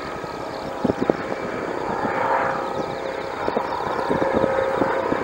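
Airbus Helicopters EC155B1 twin-turbine helicopter running in flight as it approaches: a steady whine over the rotor noise, with irregular low thumps.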